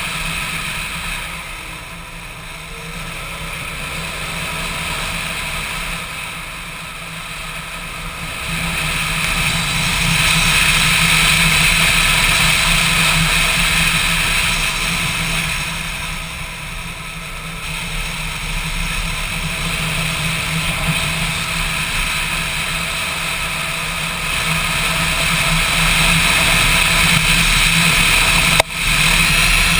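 Motorcycle engine running steadily while cruising, under a rush of wind that swells and fades several times with speed. A short sharp click near the end.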